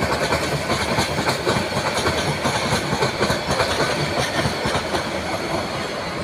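Bangladesh Railway Intercity passenger coaches rolling past, their wheels clattering steadily over the rail joints with a dense rumble and rattle of the running gear.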